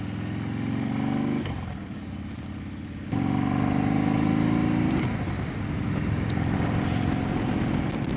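Harley-Davidson Dyna's V-twin engine under way, the revs climbing, then dropping off about a second and a half in. About three seconds in the throttle opens again sharply and the revs climb once more before settling to a steady cruise.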